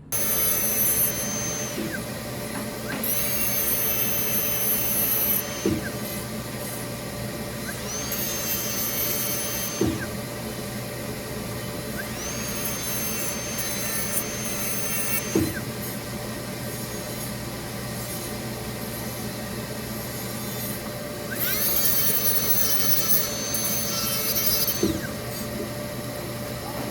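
Dental lab micromotor handpiece trimming a dental appliance. It spins up to a high steady whine, runs for a couple of seconds and winds down, five times over, with a light knock after several runs and a steady low hum underneath.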